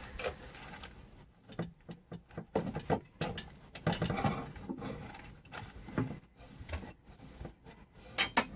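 Kitchen items being handled and rearranged: irregular clatter, knocks and rustling, with two sharp clicks near the end.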